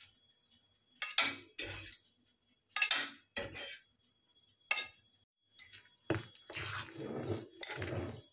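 A metal fork clinking and scraping against a baking tray and ceramic plate as baked cookies are lifted off, about six short, sharp clinks in the first five seconds. From about six seconds a spoon stirs thick, wet batter in a ceramic bowl, a longer rubbing sound.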